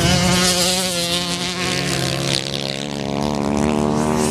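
Racing motorcycle engines on an ice track, several at once, a steady buzz with small shifts in pitch as the riders work the throttle.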